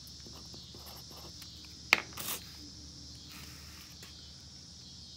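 A single sharp click about two seconds in, then a brief rustle, from small tools being handled on a workbench during a multimeter resistance check. A steady high-pitched hiss runs underneath.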